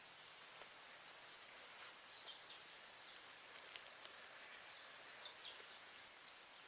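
Faint, high bird chirps and twitters over quiet forest ambience, with a few small sharp clicks, one near the middle standing out.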